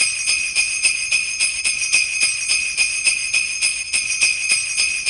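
Sleigh bells shaken in a steady rhythm, about three shakes a second, ringing brightly and continuously.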